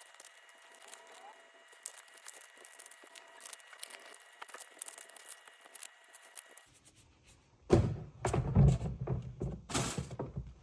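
Faint rustling and crinkling of trading-card packs being handled. Then, after an abrupt change of scene, a run of loud thumps and clatter starts about three quarters of the way in.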